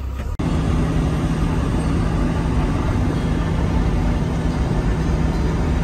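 Inside the cab of an Iveco truck cruising on a motorway: steady engine drone mixed with road and wind noise, which takes over after a brief drop about a third of a second in.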